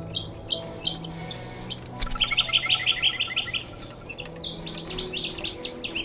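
Small birds chirping: a few short high chirps, then a quick run of about ten notes some two seconds in, then more chirps through the second half, over soft background music.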